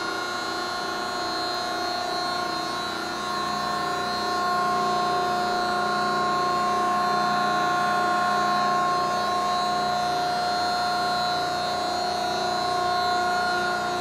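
Greenerd 10-ton C-frame hydraulic press's 5 hp hydraulic pump and motor running idle, a steady whining hum of several held tones.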